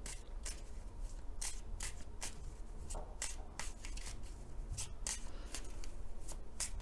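A deck of Lenormand cards being shuffled by hand: a quick, irregular run of short card clicks.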